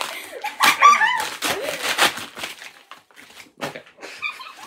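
A brown paper mailer bag torn open by hand: a run of ripping and crinkling paper, densest in the first two seconds and sparser after. A few short high whining squeals sound near the start and again about four seconds in.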